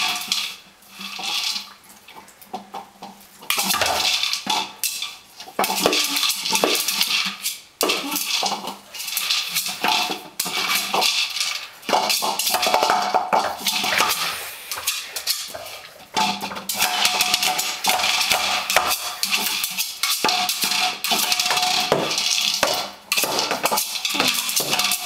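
Dry treats rattling inside a hard plastic Nina Ottosson Dog Pyramid as a puppy noses and tips it over a tile floor, the toy clattering against the tiles. Comes in busy spells with short pauses.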